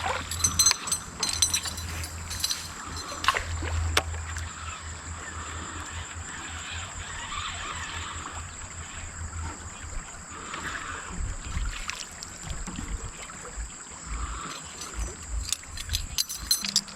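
Water sloshing and lapping against a small fishing boat, with a low hum that fades out about ten seconds in and scattered sharp clicks and taps.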